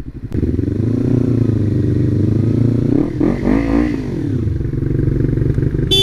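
Sports motorcycle with an aftermarket full exhaust idling in traffic. About three seconds in the engine revs up briefly and drops back to idle.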